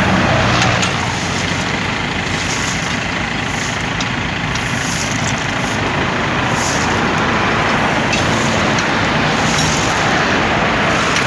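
Steady highway traffic noise: cars and trucks running past on the road.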